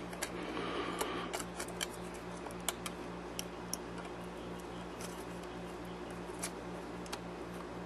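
Small plastic clicks and ticks, irregular and scattered, as the sign's electrical plug is handled and pushed into its connector, over a low steady hum.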